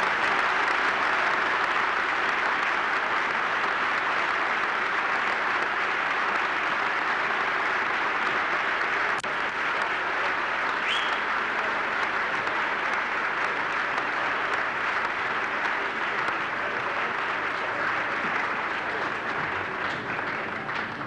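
An audience applauding: a long, steady round of clapping that eases off a little near the end.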